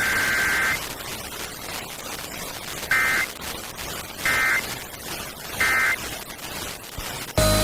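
Emergency Alert System digital data bursts over radio static: the tail of a longer burst ends about a second in. Then come three short, evenly spaced screechy bursts, the end-of-message signal that closes an alert.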